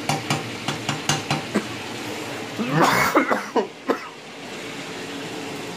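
A person coughs in a short fit about halfway through, the loudest sound here. Under it, oil sizzles steadily as taquitos deep-fry in a pan, with a run of light clicks and pops in the first second and a half.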